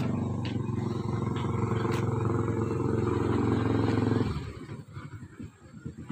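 Motorcycle engine running steadily close by, cutting off abruptly about four seconds in.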